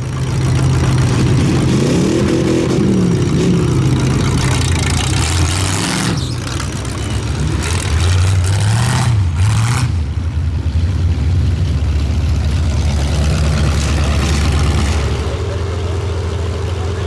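Loud engines of full-size demolition derby cars running, revved up and back down twice over a steady idle.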